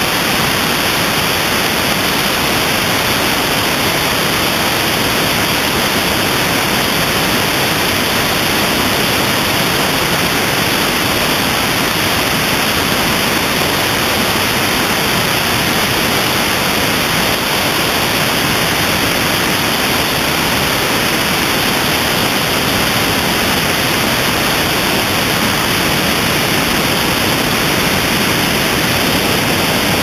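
Steady rushing of airflow over a camera mounted on the wing of a Van's RV-4 in flight: an even, unchanging hiss with no clear engine note standing out.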